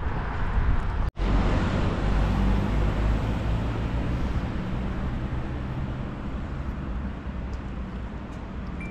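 Outdoor city street noise with road traffic: a steady low rumble with a vehicle engine's hum. It cuts out for an instant about a second in.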